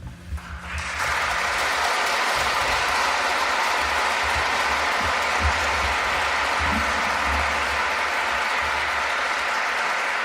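Audience applause at the end of a live song, swelling in about a second in and then holding steady.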